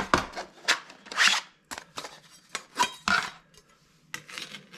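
Steel circular saw blades and their holder trays being handled: a run of sharp clinks, clicks and short scrapes as the blades are slid and set into place.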